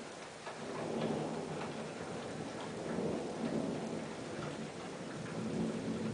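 Thunder rumbling over steady rain: the rumble builds about half a second in and rolls on in several swells.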